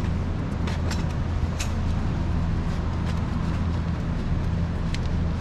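Steady low hum, with a few faint metallic clicks and scrapes as a slip-on exhaust muffler is pushed onto its link pipe.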